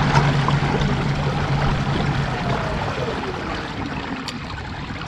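Water swishing and lapping along a kayak hull as it moves across a calm lake, with a steady low hum that stops about three seconds in.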